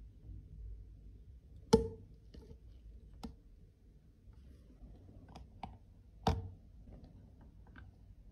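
Handling of a mirrored metal Dior powder compact and a clear plastic refill tray. There is a sharp click about two seconds in as the compact lid snaps shut, another loud click about six seconds in, and a few lighter taps between.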